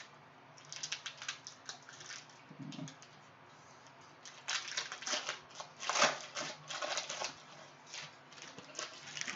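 Trading cards being handled and flicked through, with their wrapper: irregular bursts of quick clicks and rustles, busiest from about four and a half seconds in.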